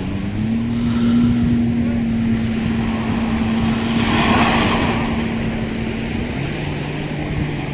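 Jet ski engine running at a steady pitch, dropping to a lower pitch a little over a second before the end as the throttle eases. A brief hiss about four seconds in.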